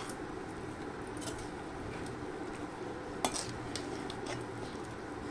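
A metal spoon stirring chicken curry in a metal pan, clinking and scraping against the pan a few times, with one sharper clink a little past halfway. A steady low hum runs underneath.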